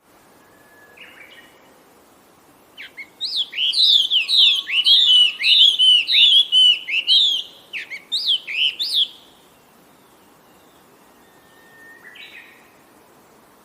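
A songbird singing a fast run of repeated, sliding chirps that starts about three seconds in and stops at about nine seconds, with a faint short call before and after it.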